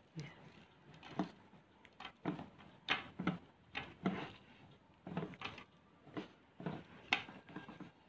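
A series of soft, irregular knocks and taps, about two a second, of the kind made by handling things.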